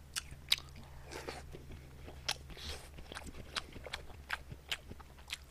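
Close-miked chewing of a mouthful of spicy chicken bulgogi wrapped in pickled radish: wet mouth clicks and soft crunches scattered through, over a faint steady low hum.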